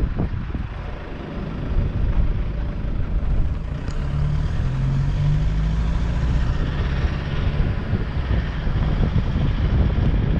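Moving van's engine and road noise, a steady low rumble with a faint engine hum coming through about four to six seconds in, and wind rush.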